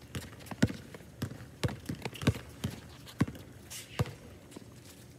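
Basketball bouncing on a hard outdoor court, about eight sharp bounces at roughly two a second as the ball is dribbled.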